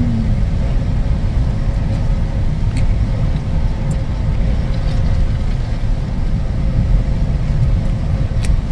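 Steady low rumble filling a car's cabin, with a few faint crunches as a fried doughnut is bitten and chewed.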